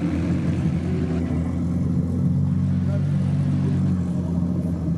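A car engine running steadily at low revs, a deep even engine note with no revving.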